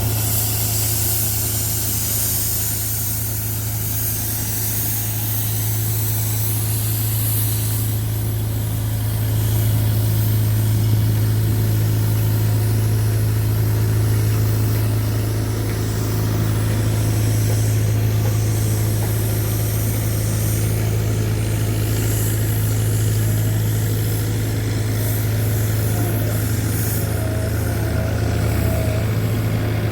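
Kawasaki K12II road roller's diesel engine running steadily at constant speed, a deep even hum.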